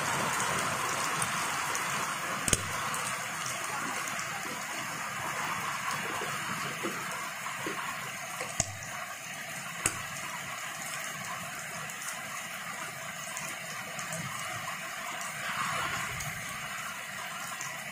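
Steady hiss of rain falling, with a few sharp knocks, the first about two and a half seconds in.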